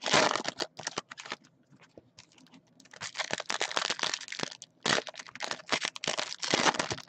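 Foil trading-card pack wrappers being torn open and crinkled, a dense run of crackling that eases off briefly about one and a half seconds in and then picks up again.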